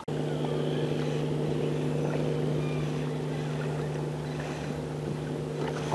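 A boat motor running at a steady, unchanging pitch, with a hiss of wind and choppy water underneath.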